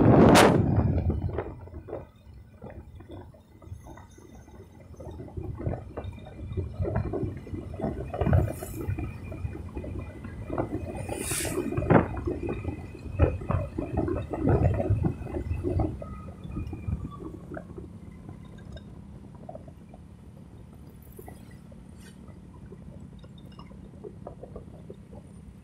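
Wind buffeting the microphone of a camera carried on a moving motorcycle, loud at first and dropping away after about a second and a half. Uneven low rumbling and knocking follows and eases off, settling into a faint steady hum.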